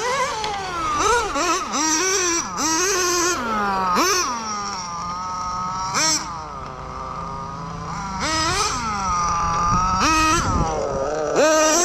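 Small nitro two-stroke engine of a 1/10 RC touring car (.12 size) revving hard again and again, its pitch climbing sharply on throttle and dropping away between bursts.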